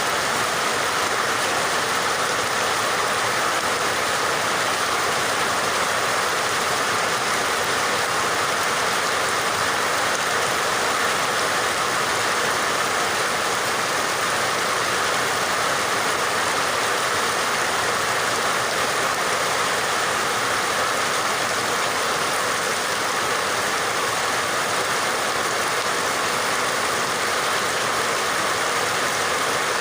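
Steady rain falling: an even, unbroken hiss with no gaps or thunder.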